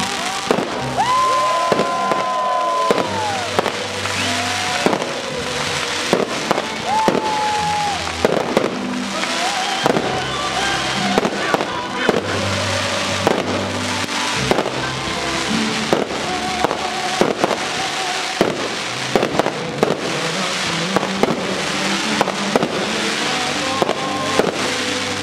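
Fireworks display: many sharp bangs from shells and comets bursting in quick succession, with music playing throughout.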